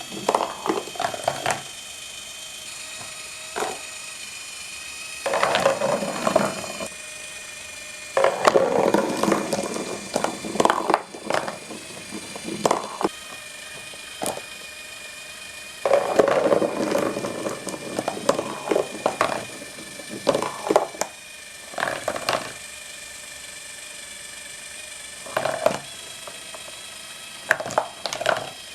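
Glass marbles rolling and clattering through a cardboard marble run in bursts of a few seconds, with sharp single clicks between them. Under it runs the steady whine of a small low-noise electric motor turning the machine's heavy cardboard disc.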